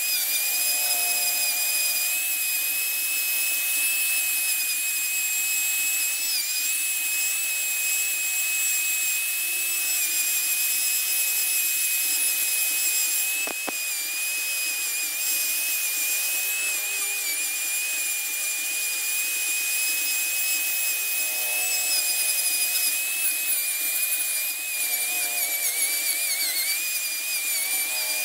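Handheld electric rotary tool with a carving burr grinding a wooden figure, giving a steady high-pitched whine with slight wavers in pitch as the burr bites the wood.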